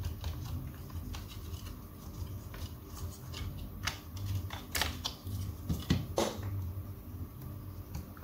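Tools and small objects being moved about on a repair workbench: scattered clicks and light clatters a second or so apart, with a low hum underneath.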